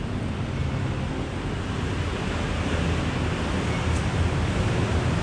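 Steady city street noise from passing traffic, with a low engine hum underneath.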